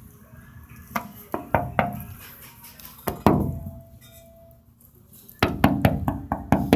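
A series of sharp knocks and taps: a few spaced ones, then one with a short ringing tail a little after the three-second mark, then a quick run of taps near the end.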